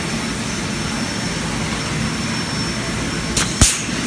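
Steady rushing workshop noise, broken about three and a half seconds in by a sharp click and a couple of short bursts of hiss.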